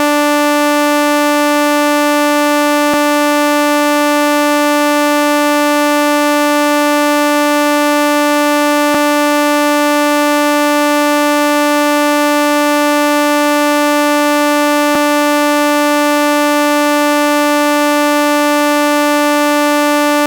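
A steady, loud electronic synthesizer tone held at one unchanging pitch, with a faint click about every six seconds.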